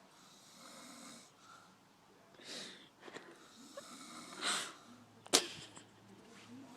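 A grandmother snoring in her sleep: three noisy breaths roughly two seconds apart. A brief sharp noise, the loudest sound, comes a little after five seconds in.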